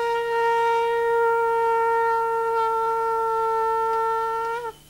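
Conch shell (shankha) blown in one long, steady note, which cuts off shortly before the end.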